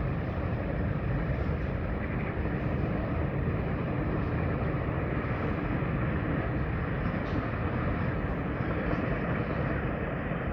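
Freight train of Eas open wagons behind an M62 diesel locomotive pulling out, a steady low rumble.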